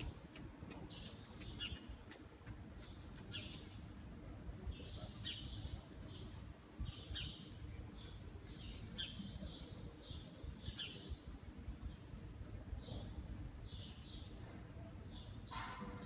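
Baby bird chirping: a few spaced high peeps at first, then a fast, unbroken run of them from about four seconds in until near the end.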